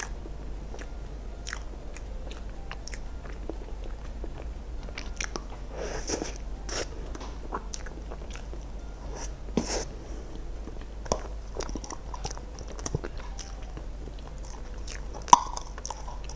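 Close-up eating sounds: a person biting and chewing a dessert, with many small wet mouth clicks, some crunching and one sharp click about fifteen seconds in.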